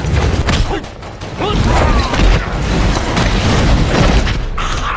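Martial-arts film fight sound effects: a dense run of blows and sword-blade clashes over a heavy low rumble.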